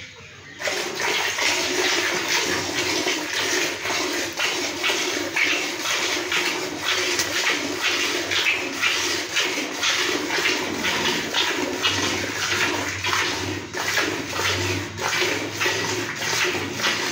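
A cow being milked by hand: quick, rhythmic squirts of milk hitting a pail, about two or three a second, starting about half a second in and going on steadily.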